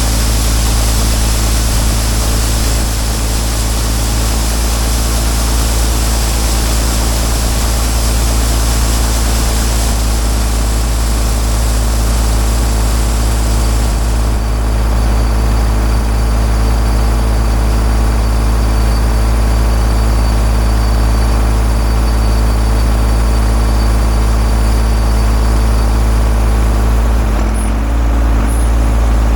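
Heavy vehicle engine droning steadily at a constant speed, deep and loud. About halfway through, the high hiss over it drops away.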